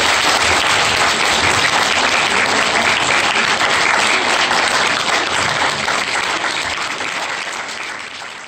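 A large audience applauding steadily, the clapping fading away over the last few seconds.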